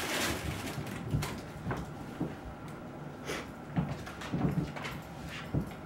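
Bengal cats playing rough on a wooden floor around a cylindrical cat tunnel: an irregular run of paw scuffs, thumps and scrapes, about seven over a few seconds.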